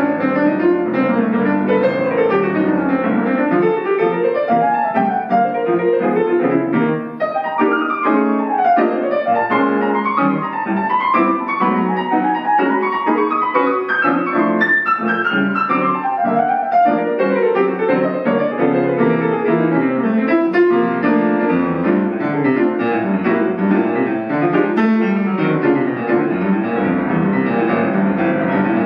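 Acoustic piano playing jazz, with quick melodic runs over steady chords.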